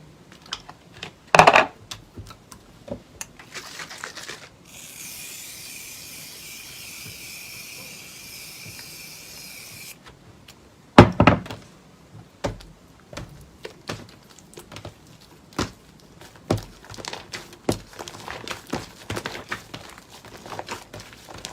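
Hands pressing, stretching and folding slime, giving sticky clicks and crackles, with two louder squelches about a second and a half in and about eleven seconds in. A steady hiss runs from about five to ten seconds in.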